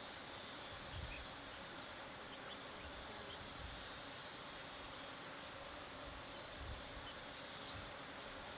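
Many bees buzzing around a flower bed, a steady hum under an even outdoor hiss, with a few faint bird chirps.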